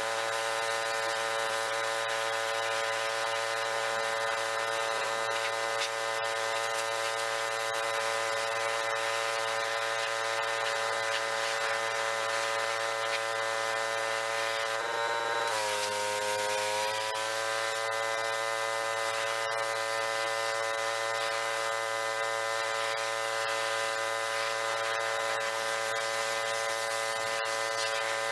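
Gas-engine pressure washer running steadily, with the high-pressure spray hissing from the wand against the aluminium hull. About halfway through, the engine's pitch sags for a second or two and then climbs back to its steady note.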